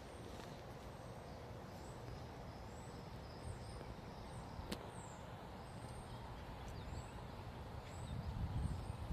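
Outdoor ambience: small birds giving short, high chirps every half second to a second over a steady background hiss, with a single sharp click about halfway and a low rumble building near the end.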